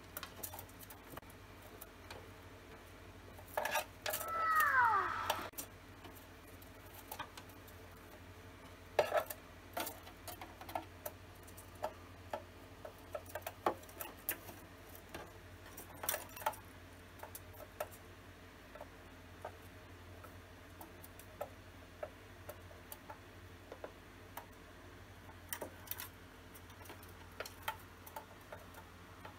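Cockatiel pecking and tapping on the plastic walls and floor of a toy house: irregular light clicks and taps, with a short falling chirp and a louder rustle about four seconds in.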